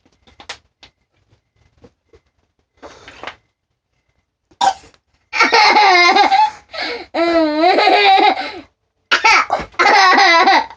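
A young child laughing in long, high-pitched bursts, starting about five seconds in and picking up again after a brief pause, after a short breathy sound near the three-second mark.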